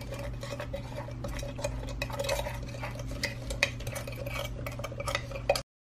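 A utensil stirring and scraping a plaster, water and shredded-newspaper paste inside a ceramic stein, with irregular clinks against the mug's sides. It stops abruptly near the end.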